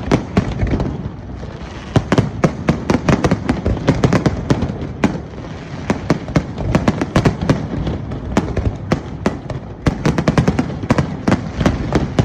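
Fireworks display: rapid, irregular bangs and crackles from many shells bursting, one after another over a continuous rumble.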